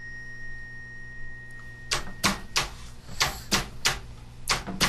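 Body percussion by the dancers: sharp hand or foot hits in a steady rhythm, three in quick succession about every 1.3 seconds, starting about two seconds in. Before the hits there is a faint, steady high whine, which stops when they begin.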